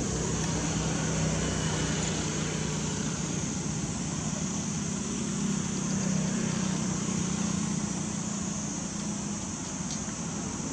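A steady low mechanical hum, like an engine or motor running, over a constant even hiss.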